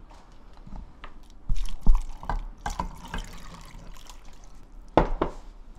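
Water poured from a glass measuring cup into a pot of sliced potatoes and onions, splashing and pattering unevenly. A sharp knock comes near the end.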